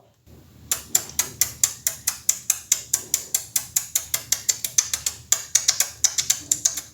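Beatbox tongue-click hi-hat: the tongue tip snapped back from behind the upper teeth, with the mouth closed. It is repeated in a fast, even train of sharp clicks, about five or six a second, starting just under a second in.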